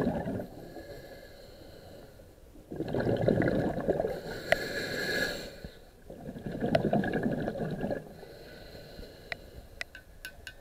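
A scuba diver breathing through a regulator underwater. Exhaled air bubbles out in three long bubbling bursts every three to four seconds, with a quieter hiss between breaths. A run of sharp clicks comes near the end.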